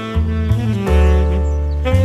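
Background jazz music: a saxophone melody held in long notes over a bass line that steps to a new note about every half second.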